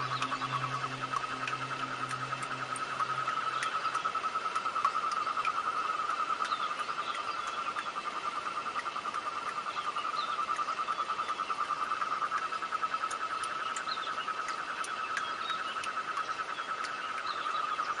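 Chorus of frogs and insects: one steady, fast-pulsing trill runs throughout, with scattered short chirps above it. A low hum underneath stops about four seconds in.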